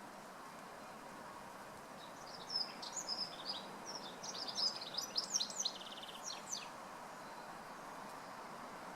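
A small songbird sings a fast, varied phrase of high notes with a short trill, lasting about four seconds, starting a couple of seconds in, over the steady rush of a flowing beck.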